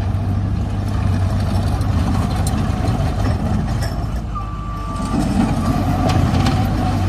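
The 81 HP Isuzu diesel engine of a Takeuchi TL140 tracked skid steer loader running steadily. A single steady electronic beep sounds for under a second about four seconds in, and a fainter one follows.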